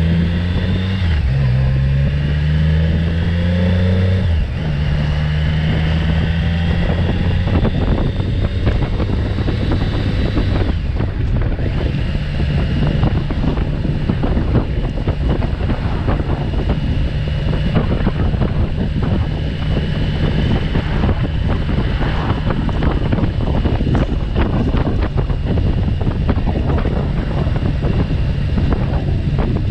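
Motorcycle engine accelerating, rising in pitch with two gear changes in the first few seconds, then running at a steady cruise. Loud wind buffeting on the microphone from riding speed builds over the engine.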